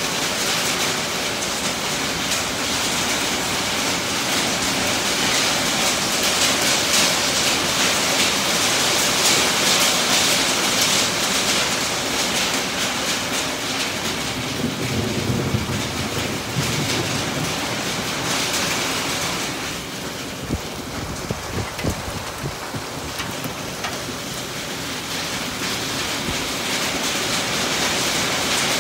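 Heavy rain drumming on a tin roof, a dense steady patter that eases somewhat about twenty seconds in. A low rumble comes through about fifteen seconds in.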